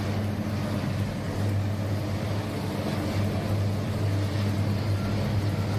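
A heavy vehicle's engine running steadily with a low, even hum.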